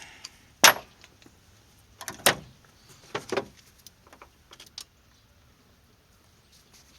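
A few sharp metallic clinks and knocks of hand tools working in a truck's engine bay, fishing for a dropped bolt: one near the start, two more at about two and three seconds in, then a few faint ticks.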